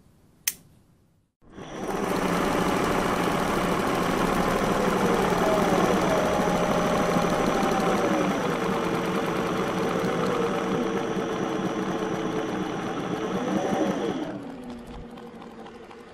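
A machine running fast, its pitch rising and falling as it speeds up and slows, with a thin steady high whine over it. It cuts off near the end and fades away.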